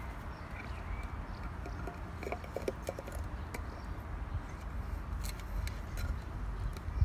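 Chocolate Labrador puppy chewing and pawing an empty tin can: scattered metallic clicks and scrapes of teeth and claws on the tin, with a brief cluster of tinny rings about two to three seconds in, over a low steady rumble.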